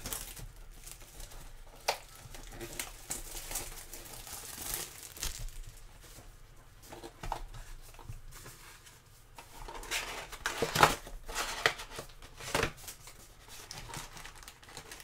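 Plastic shrink wrap crinkling and tearing as a sealed trading-card hobby box is unwrapped and its cardboard lid folded open, in irregular crackles with a louder flurry about ten to thirteen seconds in.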